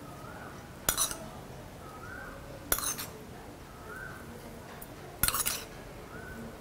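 A metal spoon clinks and scrapes against a small tempering pan three times as the oil, mustard seeds and chilies are spooned out.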